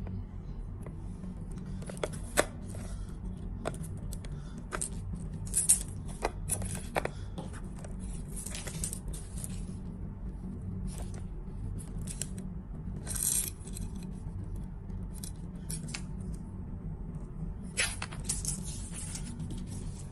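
Metal tether chains jangling and plastic rubber-stamp holders and stamp-pad cases clicking and clattering as they are picked up and handled, in scattered bursts over a steady low hum.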